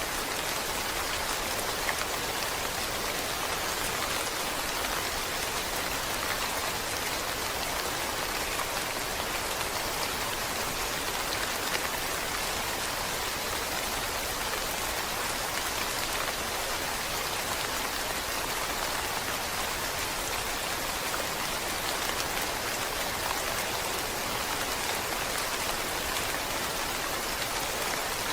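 Steady rain falling, a dense, even patter of drops that holds constant throughout.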